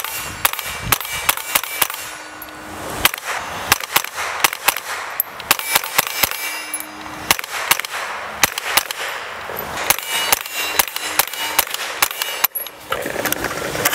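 Mitchell's Mausers PPSh-41 replica in .22 LR firing a long string of rapid semi-automatic shots from a 50-round drum, a few cracks a second with brief pauses. Some shots are followed by a short ringing tone.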